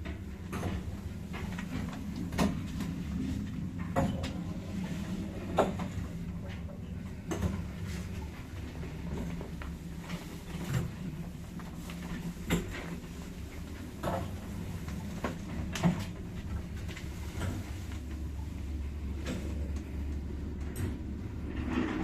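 A 1978 KMZ passenger lift car travelling in its shaft: a steady low hum with sharp clicks and knocks every second or two.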